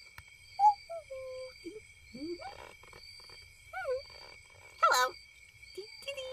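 Night-time wildlife ambience from a cartoon soundtrack. A steady high chirping runs under scattered animal calls that glide up and down in pitch, and the loudest call comes about five seconds in.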